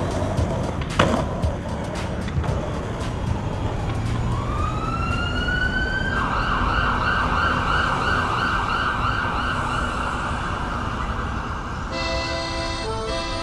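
An emergency vehicle siren winds up in pitch about four seconds in, then wails with a fast warble, about two rises a second. A skateboard knocks on concrete about a second in, and music begins near the end.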